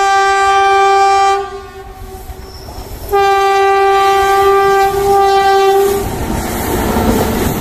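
Passenger train horn sounding two long, steady blasts: the first cuts off about a second and a half in, the second runs from about three seconds to six seconds in. After the second blast the rumble of the coaches rolling past on the track takes over.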